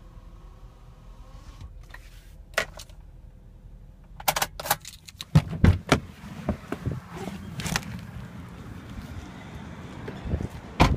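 Clicks and knocks from a 2007 Honda Odyssey minivan's door being unlatched by its chrome inside handle and swung open, followed by rustling handling noise. Another sharp click comes near the end.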